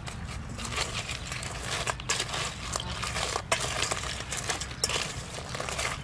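Crab shells clicking and crackling against one another and the stainless steel bowl as hands sort through a bowl of small crabs. Many quick, irregular clicks throughout.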